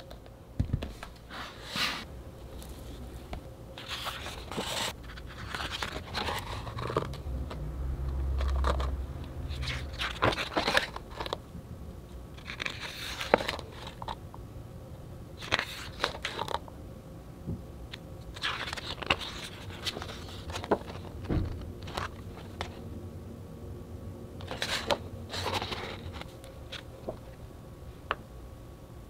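Thick, heavy pages of a large photobook being turned by hand, one after another. Each turn is a short papery swish or rustle, coming about every two to three seconds.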